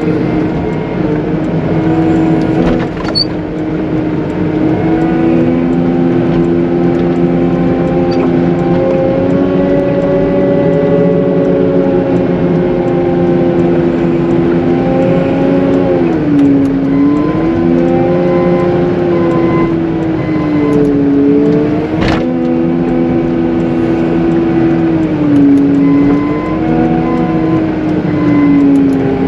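Caterpillar 906M compact wheel loader's diesel engine running under load while pushing heavy wet slush; its pitch rises and sags repeatedly as the load comes on and eases off. A single sharp knock comes about two-thirds of the way through.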